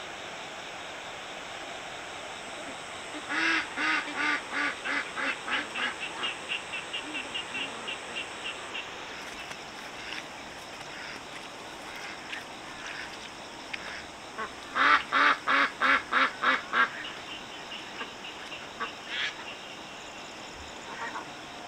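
A duck quacking in two runs of rapid calls. The first is a long series of about three or four quacks a second that fades away; about ten seconds later comes a shorter, louder burst.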